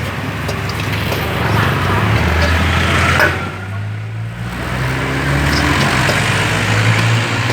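Motor vehicle engines running close by: a low engine hum that swells and shifts in pitch as vehicles pass, over murmuring background voices.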